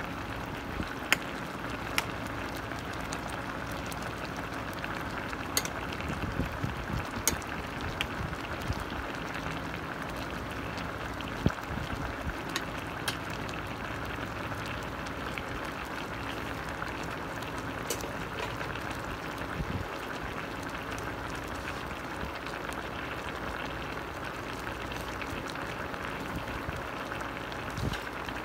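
Chicken adobo boiling in its soy-sauce liquid in a stainless steel pot: a steady bubbling with a few sharp pops scattered through it.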